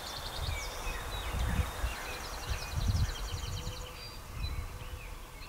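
Songbirds singing: rapid high trills and scattered chirps, over irregular low rumbles of wind gusting.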